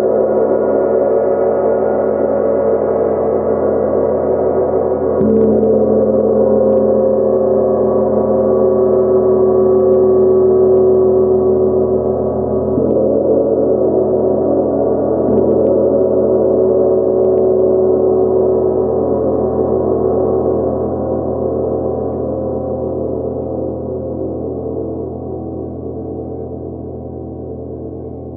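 A 70 cm Nepalese gong played with a soft-headed mallet: a few gentle strokes in the first half keep its sustained ringing of many overtones going. Then it is left to ring and slowly fade through the last several seconds.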